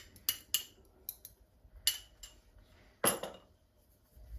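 Kitchen utensils clinking and knocking against a dish: several short sharp clicks, the loudest about three seconds in.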